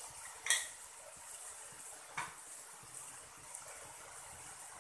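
Hot oil sizzling steadily in a frying pan as sliced mushrooms go in on top of frying onions, with two sharp knocks, about half a second in and again about two seconds in.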